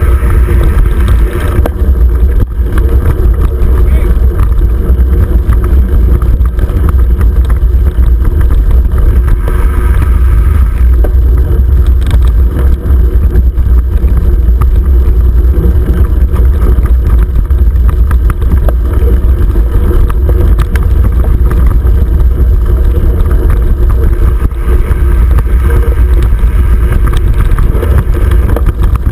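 Loud, steady low rumble and wind buffeting on a handlebar-mounted camera as a 29er mountain bike rolls over dirt singletrack, with the rattle of the bike over the rough trail.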